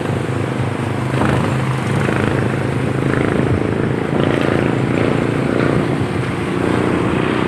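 Steady engine and road noise of a moving vehicle, heard from on board, with a low hum that eases off a few seconds in.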